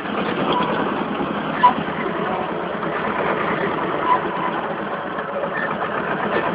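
Władimirec T-25 tractor's two-cylinder air-cooled diesel running steadily while driving, heard from inside the open cab with a constant clattering rattle, and two brief louder knocks about one and a half and four seconds in.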